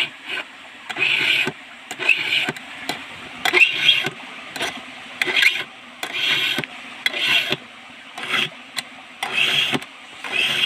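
Hand file scraping over a chainsaw chain's cutters in even strokes, about one a second: the chain is being sharpened.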